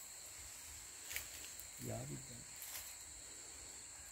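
Insects droning steadily in two high, unbroken tones. Two short sharp sounds come about a second in and near three seconds, and a brief low voice-like sound about two seconds in.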